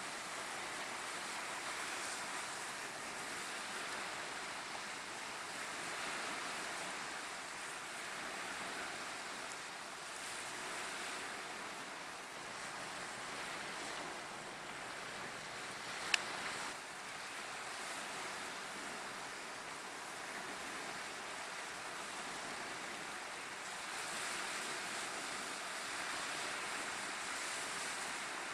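Choppy, wind-driven waves washing and breaking on a sandy shore, with wind gusting across the microphone: a steady hiss that swells and eases every few seconds. One sharp click about halfway through.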